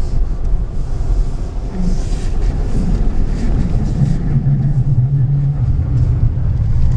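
Car cabin noise while driving down a snow-covered road: a steady low rumble of engine and tyres, with a steady engine hum coming in about halfway through.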